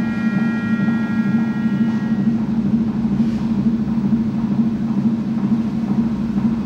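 Live experimental stage music: a dense, steady low drone, with a few high sustained tones that fade out about two seconds in.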